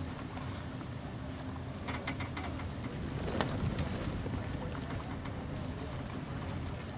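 Wind on the microphone over a steady low rumble aboard a tall sailing ship, with a few faint clinks about two seconds in.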